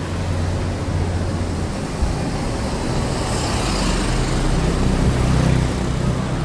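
Steady rumble of road traffic, getting a little louder in the second half.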